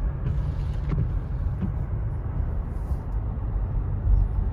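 Car driving on wet pavement, heard from inside the cabin: a steady low rumble of engine and tyres.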